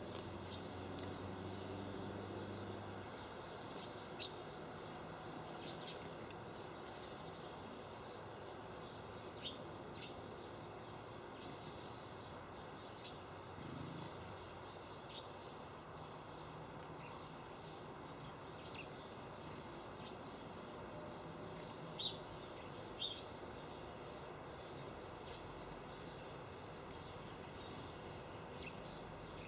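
Small birds giving short, scattered chirps and tweets over a steady background hiss, with a faint low hum in the first few seconds.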